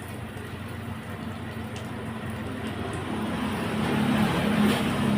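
Hose water spraying with a steady hiss, over a low motor-like hum; both grow louder toward the end.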